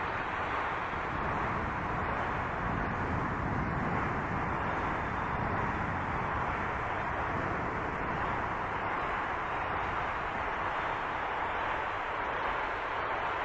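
Steady rushing noise: the camera's outdoor recording of a day of strong wind and rain, processed into an effect sound, dull with almost nothing in the treble.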